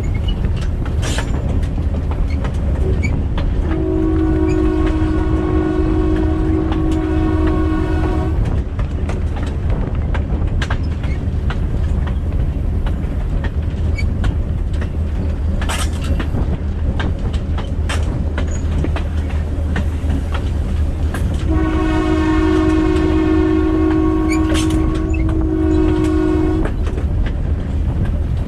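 A GMD-1 diesel locomotive's air horn sounds two long blasts, each about five seconds, some thirteen seconds apart. Under them runs the steady rumble of the moving train, with occasional clacks of wheels over rail joints.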